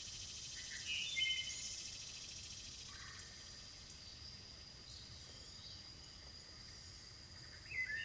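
Outdoor ambience of insects keeping up a steady high-pitched trill, with birds chirping briefly about a second in and again near the end.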